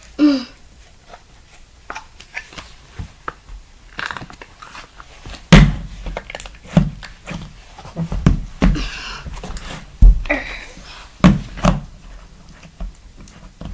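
Slime being handled, pressed and slapped by hand, heard as a run of irregular thumps, several of them loud, with soft rustling handling noise between them.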